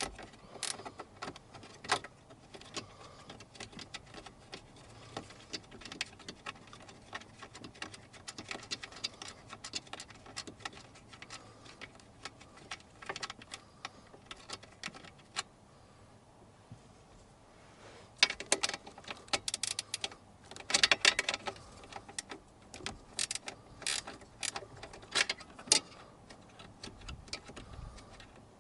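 Ratchet wrench clicking in short runs as 10mm nuts are undone, with scattered small metal clinks of tools and fasteners; the busiest clatter comes about two-thirds of the way through.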